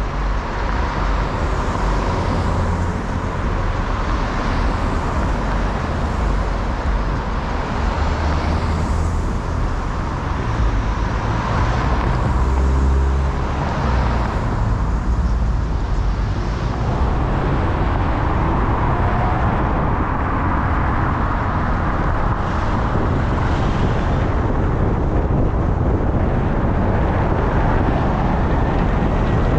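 Road traffic on a city boulevard: a steady wash of tyre and engine noise, with vehicles passing one after another every few seconds.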